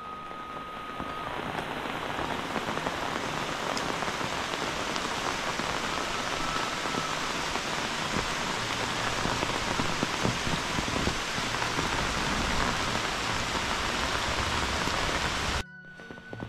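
Steady rain falling in a dense, even hiss of drops. About a second before the end the sound drops suddenly to a quieter rain.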